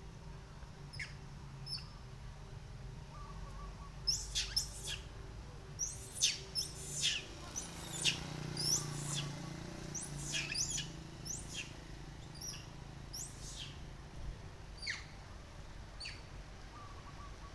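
A flurry of short, high-pitched chirps, many quick sweeping calls in a row between about four and fourteen seconds in, over a faint steady low hum.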